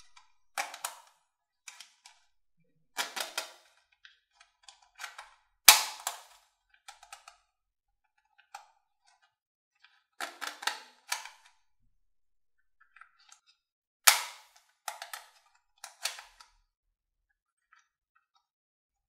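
Plastic toy dart pistol being handled and worked: clusters of sharp plastic clicks and clacks from its mechanism, the two loudest snaps about six and fourteen seconds in.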